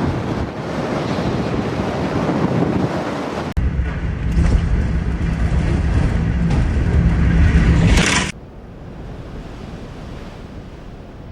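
Strong storm wind blowing on the microphone, in three cut-together pieces. The middle one, from about three and a half to eight seconds in, is the loudest, with a heavy low rumble, and it cuts off suddenly to a quieter, steadier wind hiss.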